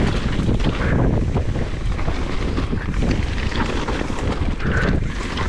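Heavy wind noise buffeting the microphone, with the rattle and clatter of a mountain bike ridden over rough trail.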